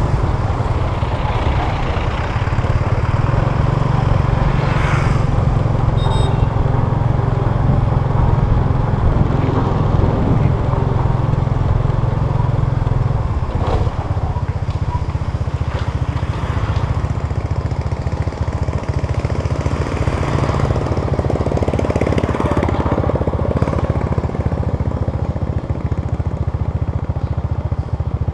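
Motorbike engine running steadily with a low rumble; about halfway through, its pitch drops a step and it carries on at the lower note.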